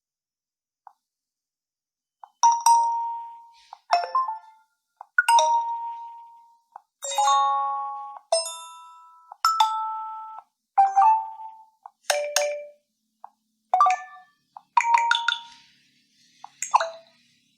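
Nokia 1 Plus preset notification sounds played one after another: about eleven short, different chimes and dings, each ringing out and fading within about a second, starting a couple of seconds in.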